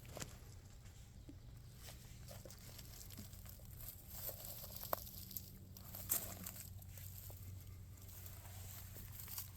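Faint footsteps of a hiker walking a woodland trail: scattered soft crunches and clicks at an uneven pace, with two sharper clicks about five and six seconds in, over a low steady hum.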